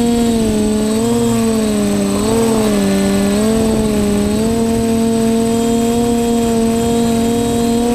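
TBS Discovery FPV quadcopter's electric motors and propellers humming steadily. The pitch dips for about a second and a half around the middle as the motors slow, then comes back up.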